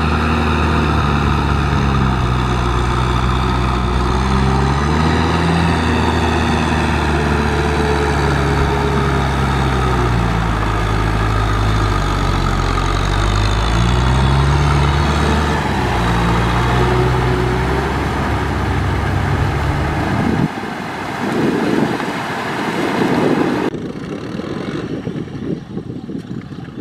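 Kubota M6040SU tractor's four-cylinder diesel engine working under load while pulling a rotary cultivator, its pitch rising and falling. About 20 seconds in the sound drops abruptly to a quieter, rougher engine noise with no steady pitch.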